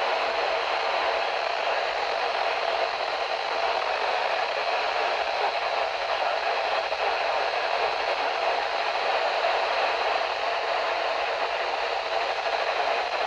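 Weather radio receiver hissing with static on a weak, badly received signal: a steady rush of noise with no clear voice coming through.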